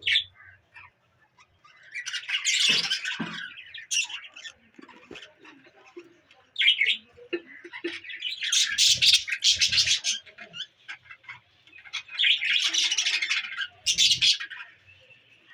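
Baby budgie chicks calling with harsh, raspy squawks in three long bouts, with shorter calls in between.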